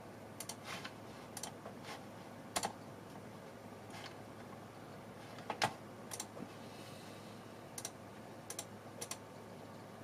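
Computer mouse clicking, about a dozen short clicks, single and in quick pairs, spaced unevenly over a faint steady background hum.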